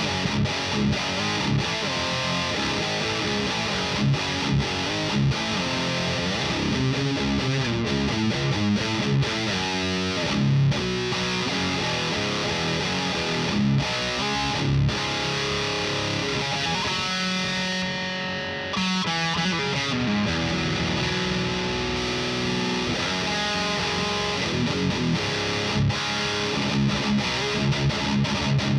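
Electric guitar played through a Fortin Hexdrive overdrive pedal into a miked amp: distorted riffing with short choppy strikes and ringing chords. About two thirds of the way through, a held chord rings and fades for a moment before the riffing picks up again.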